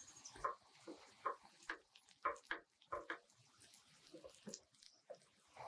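Folded tortillas frying in a little oil in a nonstick pan, with about a dozen short pops and taps at irregular intervals over a faint hiss as the spatula presses them.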